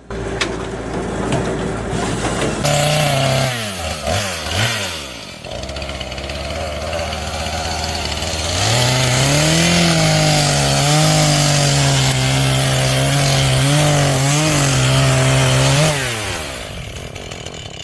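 Circular-saw log splitter's motor and blade running loud and steady. The pitch dips a few times early on, steps up about eight and a half seconds in as the saw works, holds, then winds down near the end.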